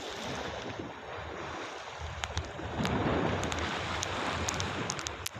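Sea waves washing and breaking against a rocky shore, with wind buffeting the microphone; the surf grows louder about halfway through.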